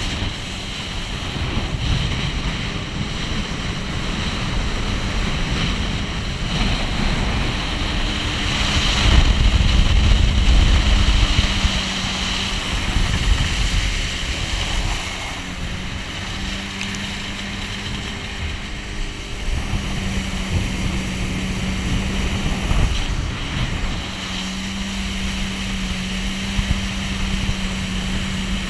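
Jet ski running at speed across open water: a steady engine hum under the rush of spray and heavy wind buffeting on the microphone, loudest for a couple of seconds about nine seconds in.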